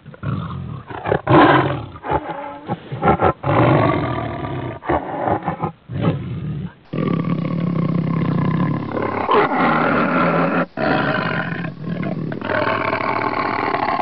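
Tiger growling: short, broken growls with brief gaps for about the first seven seconds, then, after a change in the recording, longer and steadier growls with only a few breaks.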